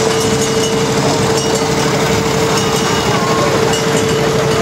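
Engines running with a steady hum and a continuous mid-pitched tone, as scale-model Sentinel and Foden steam waggons drive slowly past.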